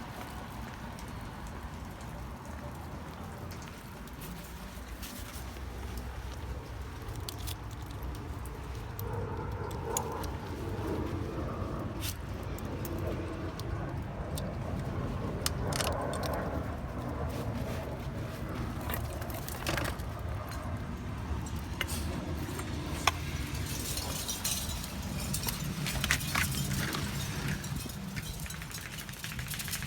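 Small metal pieces jingling and clicking now and then over a steady low rumble, the jingling busier near the end.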